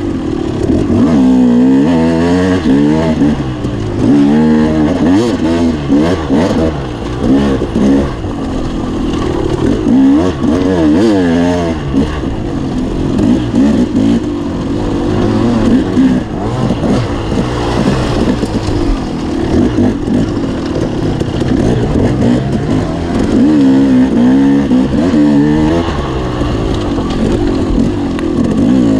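Enduro dirt bike engine revving hard and constantly, its pitch climbing and dropping every second or two as the throttle is worked and gears change.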